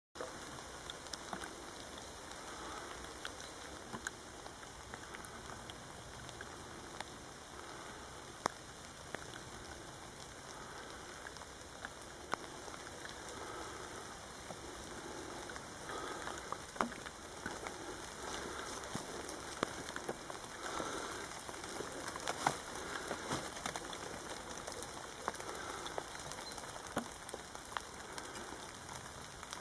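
Light rain pattering on leaves and the ground, with scattered sharp drop ticks.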